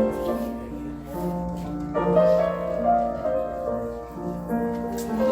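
Keyboard playing slow, held chords that change about once a second, a soft hymn-like accompaniment.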